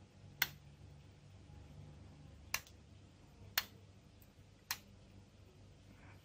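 Four sharp single clicks, a second or so apart, as the homemade transistor amplifier rig is handled, over a faint low hum.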